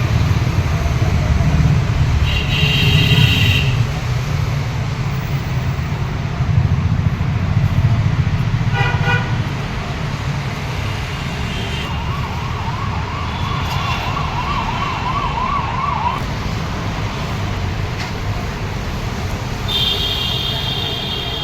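Road traffic: a steady low engine rumble, with horn blasts about two and a half seconds in and again near the end, and a siren warbling rapidly up and down for a few seconds about midway.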